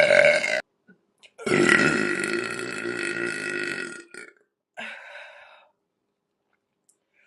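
A woman burping loudly and at length: one burp ends just after the start, and a second long burp follows about a second and a half in, lasting nearly three seconds. A short, fainter sound follows about five seconds in, then quiet.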